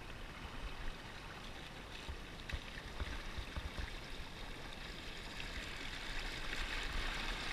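River water rushing and splashing around a small pontoon boat as a hooked trout is handled at the side, a steady hiss that grows a little toward the end, over an irregular low rumble.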